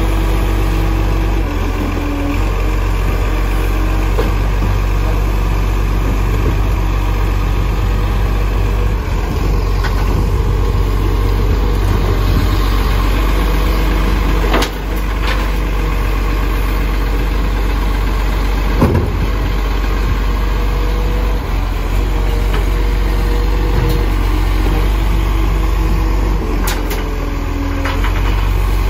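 Side-loader garbage truck's engine idling while its hydraulic bin-lift arm works, a steady hum with a whine that steps up and down in pitch. A few sharp metal clanks, about halfway through and later, as wheelie bins are tipped and knocked into the hopper.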